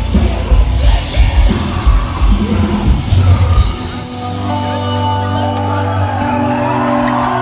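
A metalcore band playing live through a venue PA: heavy drums and distorted guitars for the first three or four seconds, then the drums drop out, leaving a held chord with voices yelling over it.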